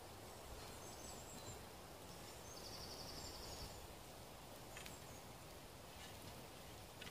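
Quiet woodland ambience with a low steady rumble. A small bird gives a brief rapid trill about two and a half seconds in, with faint high chirps before it. A couple of faint ticks come near the end.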